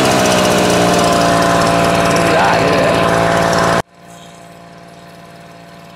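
Small two-stroke petrol engine of a knapsack power sprayer running steadily at full throttle. It has just come back to life after its spark plug and carburettor were cleaned. The loud engine sound cuts off abruptly about four seconds in, leaving only a faint steady hum.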